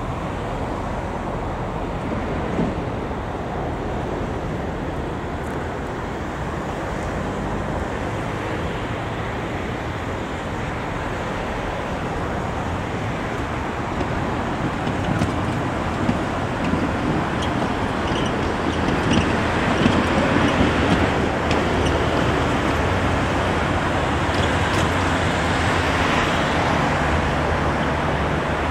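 Tram in motion: a steady rumble that grows louder in the second half, with a few sharp clicks and rattles.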